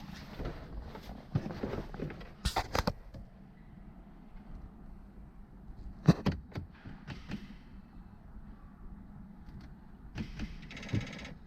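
Scattered clicks and knocks from a car being handled, with one sharp knock about six seconds in and a short buzz near the end.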